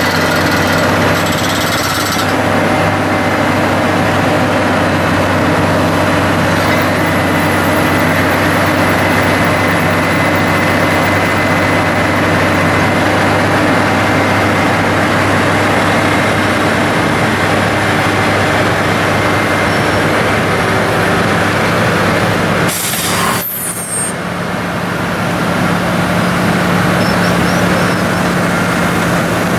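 Heavy diesel construction machinery running steadily: a constant low engine drone with a hiss over it. The sound dips briefly near the end, then carries on.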